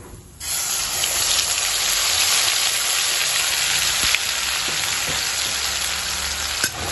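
Ground spice paste poured into hot oil in a kadai, hitting it with a sudden sizzle about half a second in that carries on as a steady hiss of frying, with an occasional sharp pop.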